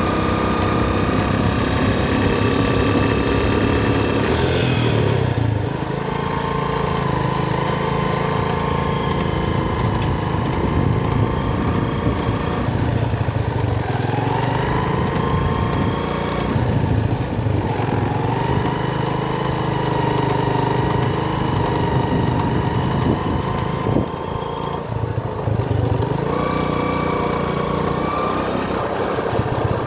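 Engine of a vehicle driving along a road, running steadily with its pitch stepping down and back up several times.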